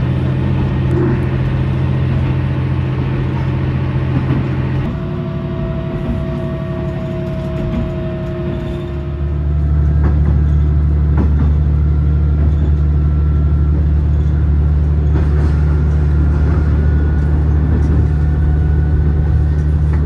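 Diesel railcar running on a single-track line, heard from inside the car: a steady low engine drone that shifts about five seconds in and grows louder about nine seconds in, with a few faint clicks from the rails.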